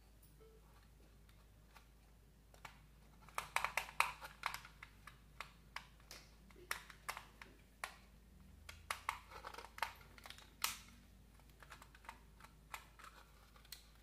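Irregular light clicks and taps of a plastic modular switch plate and its stiff insulated wires being handled at an opened wall box. They start about two and a half seconds in and come thickest around four seconds and again near ten seconds.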